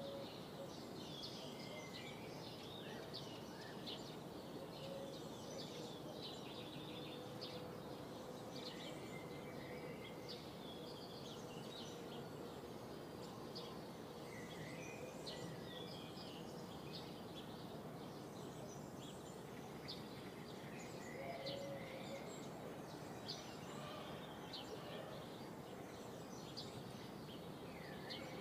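Rural outdoor ambience: several small birds chirping and calling over a steady, faint background hiss.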